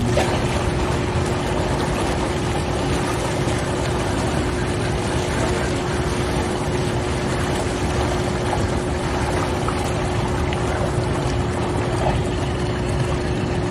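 Hot tub jets running: churning, bubbling water with a steady pump hum.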